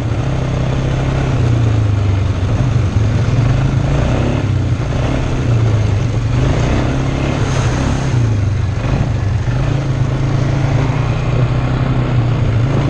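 ATV engine running steadily under way, its pitch wavering a little as the throttle changes.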